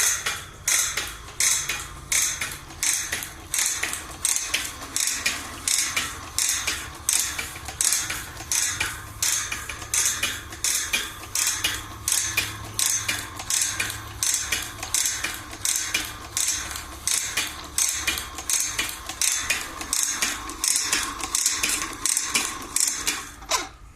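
Automatic bandsaw blade tooth-setting machine working through a blade: sharp metallic clacks at about two a second, each one the machine indexing the blade and bending a tooth, over a low motor hum. It stops suddenly near the end.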